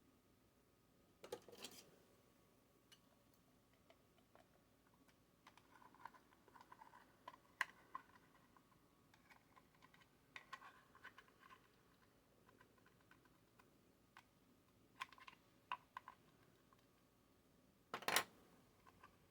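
Faint, scattered clicks and light knocks of small parts and tools being handled on a workbench, with a sharper knock about a second in and the loudest clack near the end.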